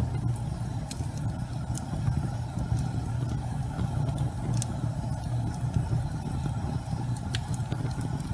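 Wood fire burning in a fireplace: a steady low rumble of the flames with a few sharp crackles and pops from the burning logs scattered through it.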